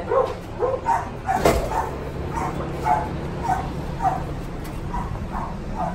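Shelter dogs barking in short, repeated barks, roughly two a second, with a single thump about one and a half seconds in.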